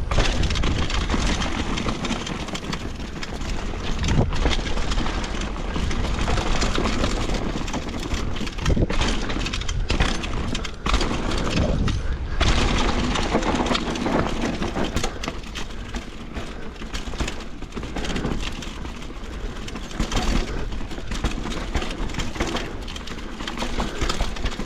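Mountain bike riding off-road heard on an action-camera microphone: wind rushing over the microphone, tyres on dirt and the bike clattering and rattling over bumps, with loudness rising and falling.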